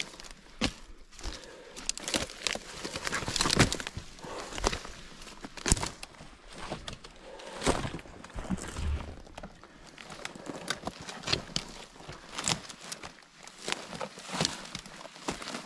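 Footsteps crunching through dry brush, dead pine needles and twigs, with irregular steps and the rustle of branches brushing past.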